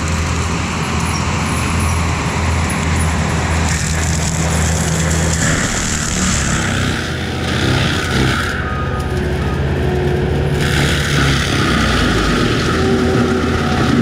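ASV RT-135 compact track loader's diesel engine running steadily under load while its FECON forestry mulcher drum spins and grinds through brush and small trees. The high grinding hiss drops away for about two seconds just past the middle, then returns.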